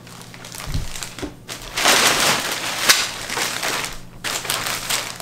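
White packaging wrap crinkling and rustling as it is pulled off a subwoofer, loudest between about two and three and a half seconds in, with one sharp snap near the three-second mark.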